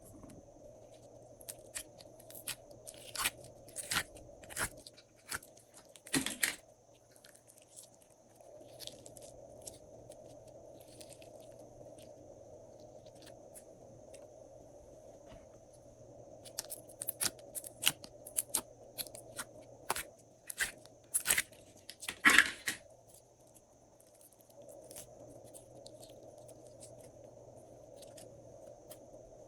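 Glossy slime being mixed and pressed by hand, giving two spells of crunchy crackles and sharp clicks over a faint steady hum.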